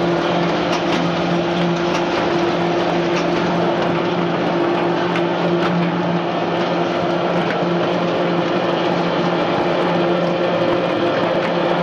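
Stainless steel French fry production line conveyors running: electric gear motors hum steadily, with the rushing noise of the machinery and scattered light clicks from the mesh belt and lifting conveyor.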